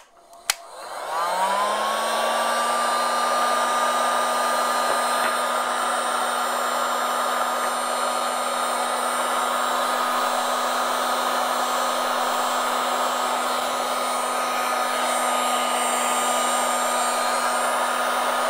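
Electric heat gun switched on after a couple of sharp clicks; its fan motor spins up with a rising whine, then blows hot air steadily with an even whine over the rush of air.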